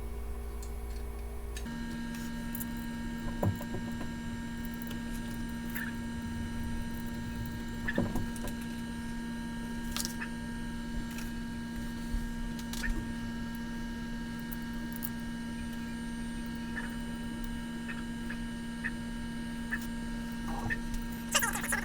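Scattered small clicks and taps of a screwdriver and tiny screws as a small plastic duct is fitted to a 3D printer, over a steady hum.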